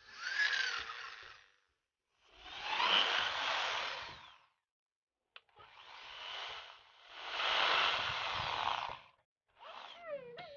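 Handheld power tool running in five short bursts of one to two seconds each, with brief pauses between them.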